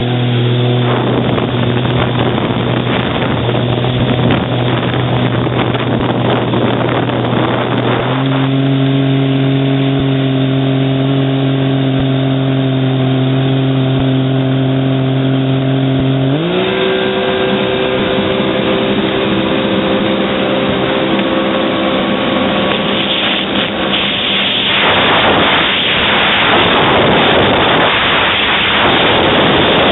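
Jet ski engine running at a steady pitch, stepping up slightly about eight seconds in, then rising sharply as it speeds up about halfway through and holding the higher pitch. Wind and water rush grow louder over it in the last few seconds.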